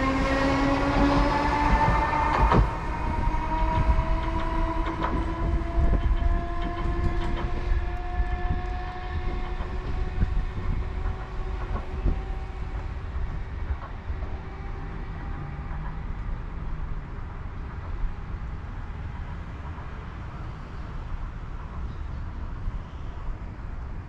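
Chikuho Electric Railway train pulling away: its traction motors whine, rising slowly in pitch and fading as it accelerates off. Wheels click over the rail joints, loudest at the start.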